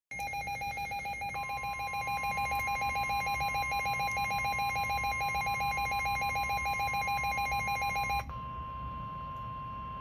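Midland NOAA Public Alert weather radio sounding its fast-pulsing electronic alert beep for a severe thunderstorm warning. From about a second in, a steady single-pitch tone, the NOAA warning alarm tone, comes through its speaker alongside the beep. The beeping stops about eight seconds in while the steady tone carries on.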